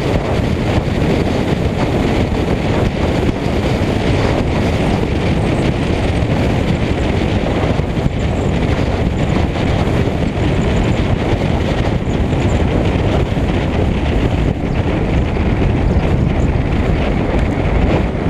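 Wind rushing over a camera mounted outside a moving car, with tyre and road noise: a loud, steady rumble.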